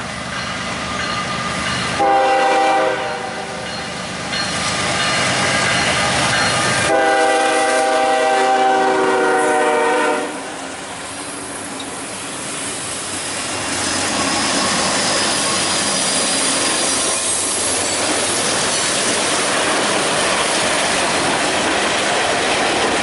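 Norfolk Southern freight train's locomotive horn blowing two long chord blasts, the first about two seconds in and the second about seven seconds in. After that the locomotives and tank cars roll past close by with a steady clickety-clack of wheels on rail joints.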